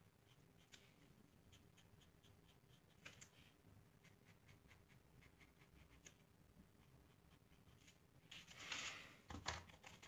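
Faint pencil scratching on paper in short, light strokes as an outline is drawn. Near the end comes a louder rustle and a knock as the paper is handled.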